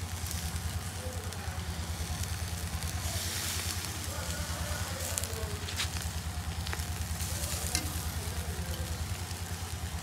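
Antelope and beef strips sizzling over charcoal on a wire grill, with a few sharp clicks of a metal carving fork against the grill in the second half. A steady low hum runs underneath.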